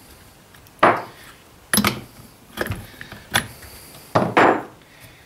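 About six sharp, irregular knocks and clacks of a metal T-handle spark plug wrench and hands against the plastic housing of a Stihl MS210 chainsaw while its spark plug is being removed.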